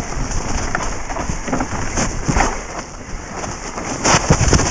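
Mountain bike riding fast down a forest dirt trail, heard from a camera on the bike or rider: a steady rushing noise of tyres over dirt and air past the microphone, with scattered knocks and rattles from the bike over rough ground. A louder cluster of knocks comes near the end as the bike hits a rougher patch.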